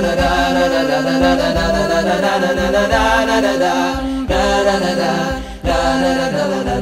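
Wordless a cappella vocal music: voices chanting a melody over a held low drone, with a steady low beat underneath.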